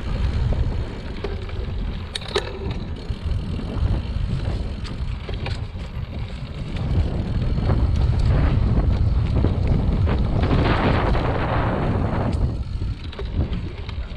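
Mountain bike ridden along a dirt singletrack: wind buffets the camera microphone with a steady low rumble, tyres hiss over the dirt and leaf litter, and the bike gives sharp rattles now and then. A louder stretch of hiss comes about ten to twelve seconds in.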